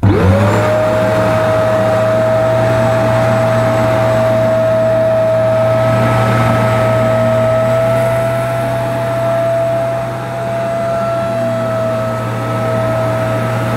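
Bissell PowerClean upright carpet washer switched on: its motor spins up within half a second to a steady high whine over a low hum and runs on loudly, dipping slightly about ten seconds in.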